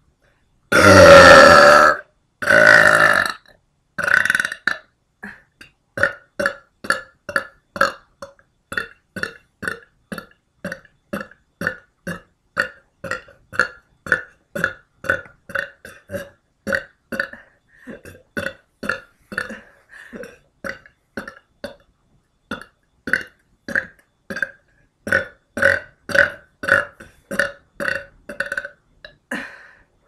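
A woman belching. First come two long, loud burps, then a shorter one, then a long run of short, rapid burps at about two a second.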